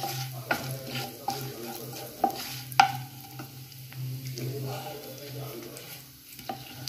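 A wooden spatula stirring and scraping whole spices (fennel seeds, black peppercorns and dried red chillies) around a nonstick pan in hot oil, with a sizzle and scattered sharp clicks, over a steady low hum. The spices are being roasted in the oil until they crackle.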